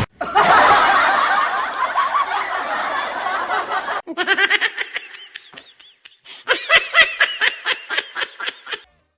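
Laughter: a dense burst of many voices laughing together, cut off sharply about four seconds in, then a single voice laughing in quick, short pulses.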